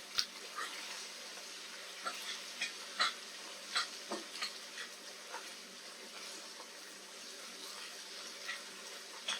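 Eggs frying in a pan: a steady sizzle with scattered sharp pops and clicks, busiest in the first half.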